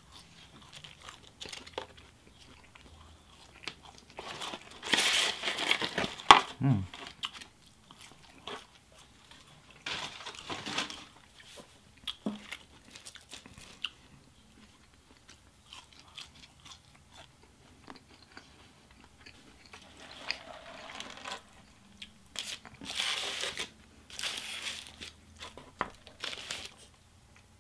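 Close-up eating sounds: chewing and biting into Wendy's fries and chicken nuggets in several separate bouts with quiet between, and a sip through a straw near the end.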